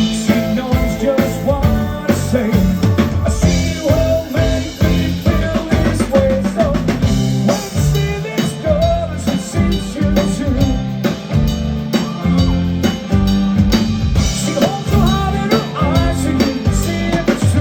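A rock band playing an instrumental passage, a drum kit keeping a steady beat under the other instruments.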